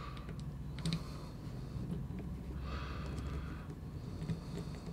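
Quiet handling sounds of a micro FPV quadcopter being taken apart by hand: a few faint clicks and taps of small parts and bolts, with a soft breath through the nose about three seconds in.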